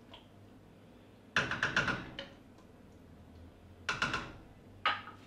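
A cooking utensil clinking and knocking against a frying pan as curry is stirred: a quick run of clinks about a second and a half in, then a few more short knocks near the end.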